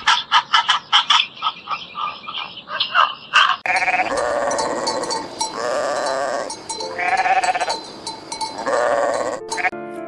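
A quick run of short, sharp calls for the first three and a half seconds or so, then a farm animal bleating four times in long, quavering calls.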